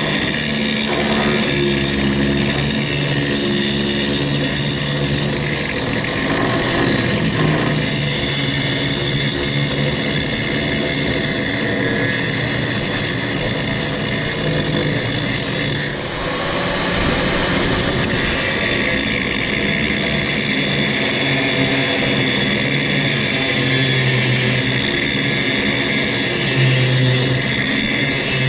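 A power tool cutting through a steel leaf-spring hanger on a truck frame, running continuously with a shifting whine that briefly dips about halfway through.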